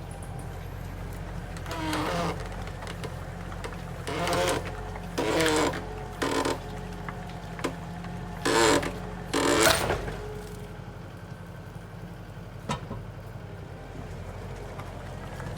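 Skid steer engine running steadily, with six short, loud pitched sounds over it in the first ten seconds and a single sharp click a little later.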